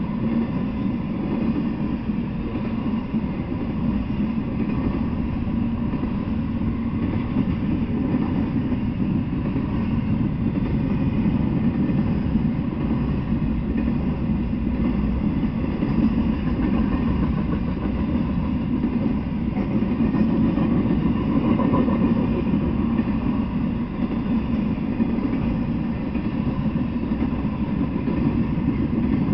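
Intermodal freight train, with truck trailers riding on flatcars, rolling past: a steady, low rumble of wheels on rails.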